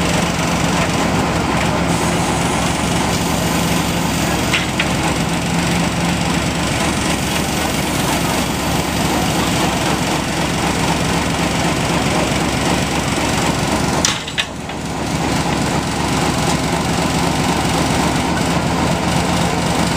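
A train's diesel locomotive engine running close by, a loud steady drone with a low hum through it. The sound dips briefly about fourteen seconds in.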